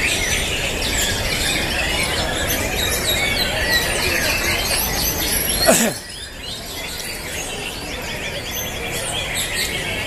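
Many caged songbirds singing at once in a songbird contest, a dense chorus of chirps and trills, with crowd noise low beneath. About six seconds in there is a brief, sharp falling sweep, the loudest sound here, after which everything is a little quieter.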